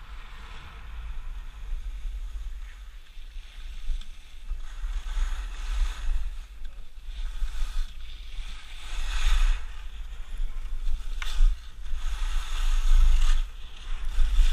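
Wind buffeting the microphone of a skier's camera, with the hiss of skis carving over packed snow swelling and fading with each turn, louder in the second half.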